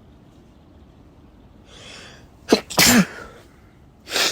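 A man sneezes once from pollen allergy: a soft inhale about two seconds in, then a sharp, loud sneeze with a falling pitch about a second later. A short, noisy breath comes out near the end.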